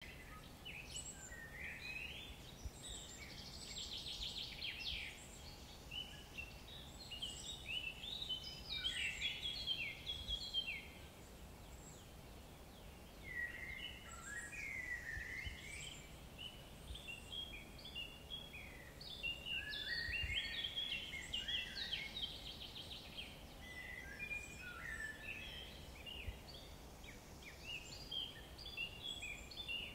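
Songbirds singing, with many short chirps, trills and gliding phrases overlapping in bursts, over a quiet low rumble.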